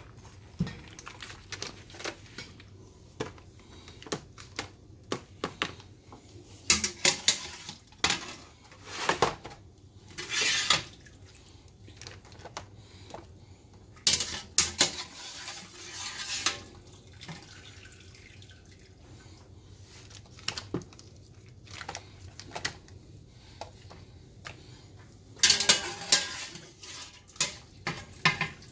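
Metal skimmer and wire strainer clattering and scraping against the boil pot and a foil pan as boiled crab, lobster, corn and potatoes are scooped out and dropped in, with water splashing and dripping. The clatter comes in several bursts a few seconds apart.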